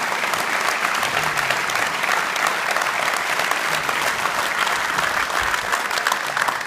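A crowd applauding, many hands clapping steadily together.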